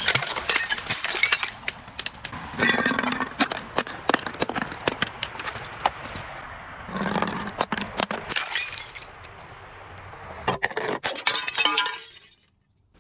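Glass bottles being broken: dense, repeated cracking and crunching with clinking shards, in several bursts. It cuts off shortly before the end.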